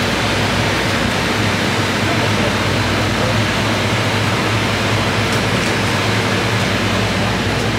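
Steady, loud machinery noise: an even hiss over a constant low hum that holds the same level throughout.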